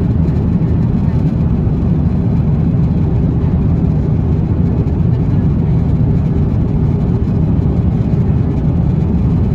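Steady low rumble and rush of an Airbus A350-900 cabin in cruise: engine and airflow noise heard from an economy seat.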